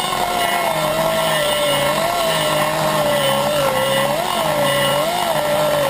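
A die grinder running at high speed, cutting inside the aluminium exhaust port of a Jeep 4.7 V8 cylinder head as the port is ground smooth. It makes a steady whine with a grinding hiss, its pitch dipping and recovering slightly as the bit bites into the metal.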